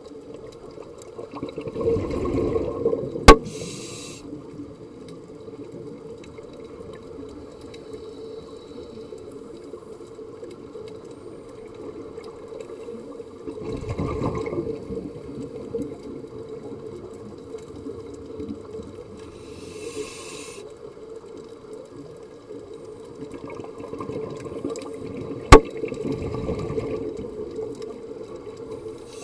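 Scuba diver breathing through a regulator, heard underwater: three slow, bubbling exhalations, a few seconds in, midway and near the end, with short hisses of inhalation between them, over a steady low hum. Two sharp clicks, one a few seconds in and one near the end, are the loudest sounds.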